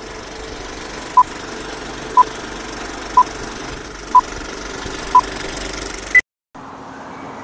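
Film countdown-leader beeps: five short beeps of the same pitch, one a second, then a single higher beep. They sound over a steady mechanical running noise, and everything cuts off suddenly right after the last beep.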